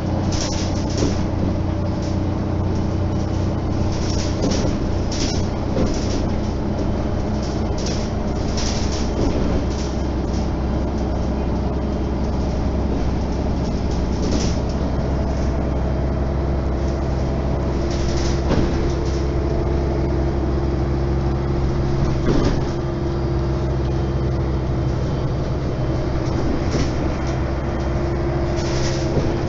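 Mercedes-Benz O 530 G Citaro articulated bus under way, heard from inside the passenger cabin: a steady engine drone with frequent short rattles and clicks from the interior fittings. A little past halfway the engine's pitch steps up slightly.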